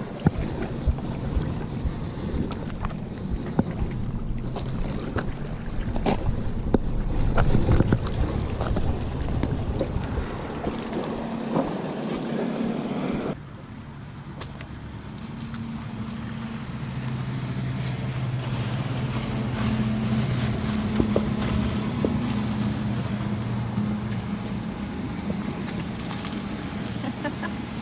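Wind and water noise from jetty rocks, broken by sharp knocks and clatter from handling the fishing rod and reel. After an abrupt cut about halfway through, a steady low engine-like drone with two held pitches rises and carries on under the wind.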